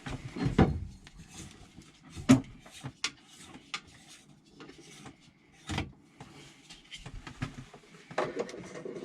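Scattered knocks, clicks and rubbing of things being handled, with the sharpest knock about two seconds in and another cluster of knocks near the end.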